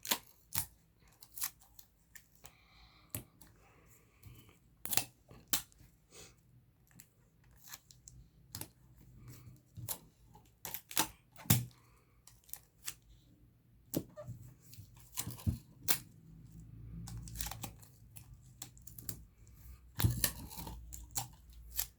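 Sticky tape being pulled off and torn, then pressed onto paper cutouts, in many short irregular rips and crackles.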